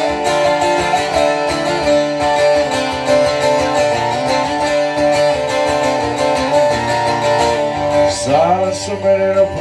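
Twelve-string acoustic guitar played live, a steady strummed and picked pattern over ringing notes. Near the end a man's singing voice comes in over the guitar.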